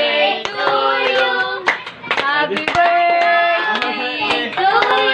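Several voices, children's and adults', singing a song together, with hands clapping along.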